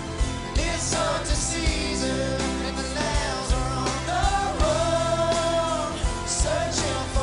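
Live pop song: male voices singing with long held notes over strummed acoustic guitars and a low backing band.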